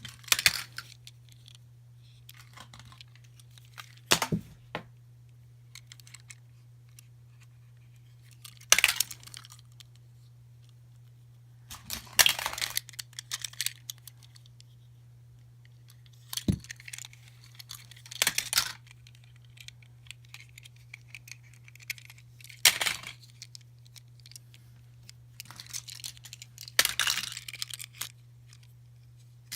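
Wrapping being torn and crinkled and small plastic toys handled while surprise eggs are opened, in irregular bursts every few seconds, with one sharp click about halfway. A faint steady low hum runs underneath.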